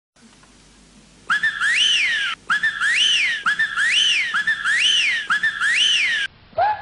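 A person whistling a repeated figure: about a second in, five phrases come roughly one a second, each a held note that swoops up and back down.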